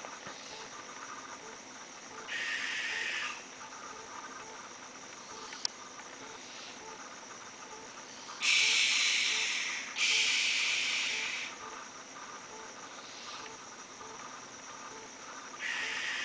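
Young owls giving harsh, hissing screech calls, each about a second or more long and without a clear pitch: one a couple of seconds in, two long loud ones back to back around the middle, another near the end, with fainter calls between. Crickets chirp steadily underneath.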